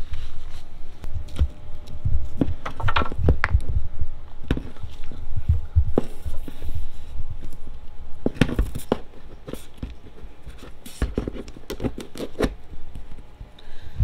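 Irregular clicks, knocks and scrapes of a plastic 15 amp shore power inlet and its cable being worked into a hole in the cargo trailer's wall, over a low rumble.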